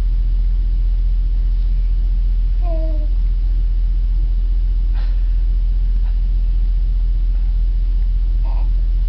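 A steady low hum throughout, with one short baby coo about three seconds in and a faint click about two seconds later.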